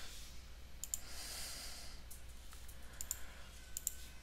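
Computer mouse buttons clicking several times, some in quick press-and-release pairs, over a low steady hum.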